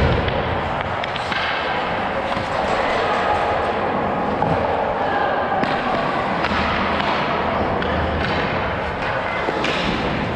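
Ice hockey skates gliding and scraping on rink ice. Rushing air noise comes through on a body-worn camera's microphone, with a low rumble now and then.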